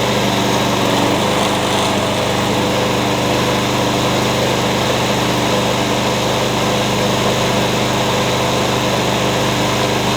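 Walk-behind lawn mower's small gasoline engine running steadily at speed; it sounds pretty good, running well after carburetor cleaner.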